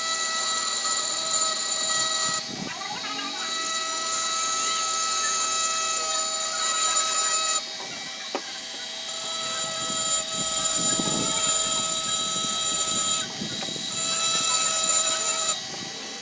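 Rotary tool with a flexible-shaft handpiece running with a steady high whine while its small bit grinds letters into a glass bottle. The whine grows louder and fuller in stretches of a few seconds while the bit is on the glass, and drops back briefly whenever it is lifted off.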